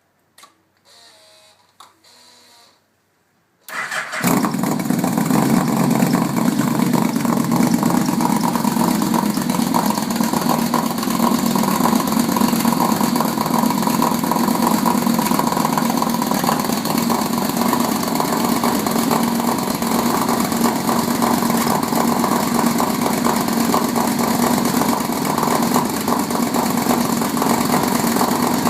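Yamaha V-Max's V4 engine, breathing through Oonishi conical header pipes and a MotoGP-style silencer, being started: a brief, faint cranking, then the engine catches about four seconds in and idles steadily.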